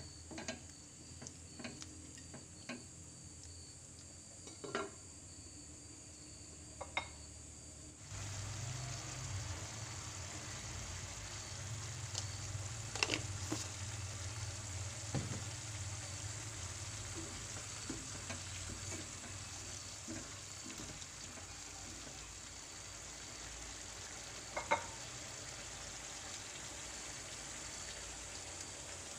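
A wooden spatula stirring chicken and potato curry in a ceramic-coated wok, with sharp taps against the pan. About eight seconds in, the sound steps up to a steady sizzling hiss of the curry cooking, with a few more knocks.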